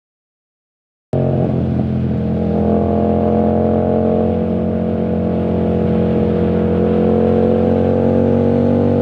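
Yamaha MT-07 parallel-twin engine running through a full titanium aftermarket exhaust with no dB killer, the sound cutting in abruptly about a second in. It holds a steady engine speed, rising slightly in pitch near the end.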